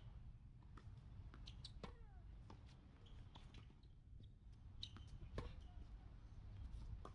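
Faint tennis rally on an outdoor hard court: a scatter of sharp ball strikes and bounces, the loudest knock about five and a half seconds in, over a low wind rumble. A few short falling squeaks come about two seconds in.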